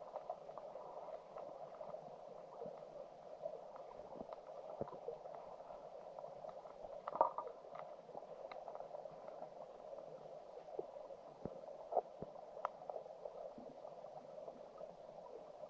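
Stream water heard underwater: a steady, muffled rush of flowing water, with scattered faint clicks and ticks and a short louder cluster of them about halfway through.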